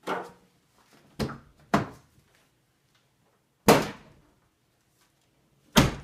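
A run of five clunks and thumps, the loudest about halfway through and a deep one near the end. They come from the car's door and interior hood release being worked and from the new hood latch of the Mercedes-Benz W163 ML500 letting go, so that the hood pops up onto its safety catch.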